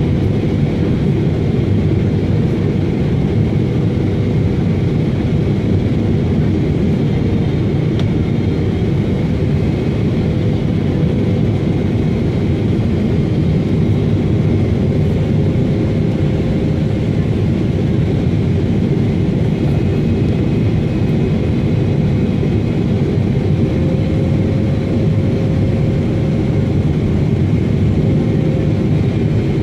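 Boeing 777-300ER cabin noise on final approach, heard beside its GE90-115B engine: a steady, loud, low rumble of engine drone and airflow, with a faint hum that drifts slightly in pitch.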